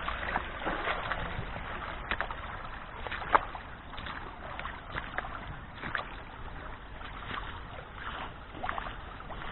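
Someone wading through a shallow stream: irregular splashes and sloshes of feet in the water, about one a second, over the stream's steady running water. The loudest splash comes about a third of the way in.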